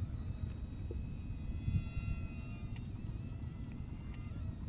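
Small electric motor and propeller of a ZY-320 remote-control foam plane flying high overhead: a thin, insect-like whine that shifts slightly in pitch, over a low rumble of wind on the microphone.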